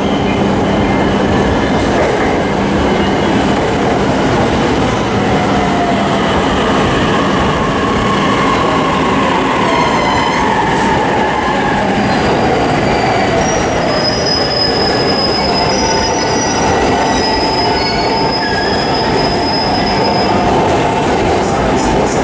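Electric limited-express train arriving at a station platform and slowing: steady running rumble with a low hum, and a whine that falls in pitch as it brakes. High thin squeals come in about halfway through.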